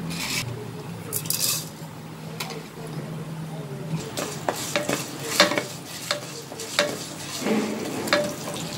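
Urad dal in hot oil in a non-stick pan, with a light sizzle and two short hisses in the first two seconds. From about four seconds in, a wooden spatula stirs it, with a run of sharp scraping clicks against the pan.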